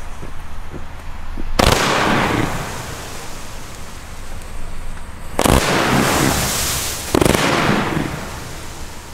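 Pyroland Butterfly Blues fan-shaped firework cake firing: it starts about a second and a half in with a sudden volley of shots that trails off into a long crackling hiss, then fresh volleys come about five and seven seconds in.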